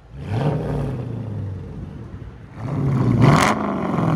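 Straight-piped 6.1 L Hemi V8 of a 2010 Dodge Challenger SRT8, with its X-pipe and rear mufflers deleted, revved twice. A short rev just after the start drops back to a steady run, then a bigger rev near three seconds in climbs and falls back.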